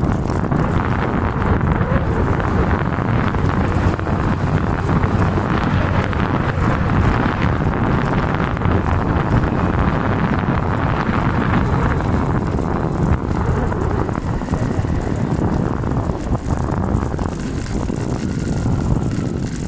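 Steady wind buffeting on the microphone of a camera riding along a road, over the low rumble of the moving vehicle, easing slightly near the end.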